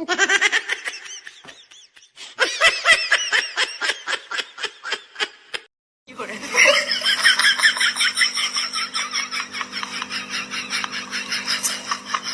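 Rapid, pulsing laughter in two stretches, broken by a brief silence about six seconds in; the second stretch has a steady hum beneath it.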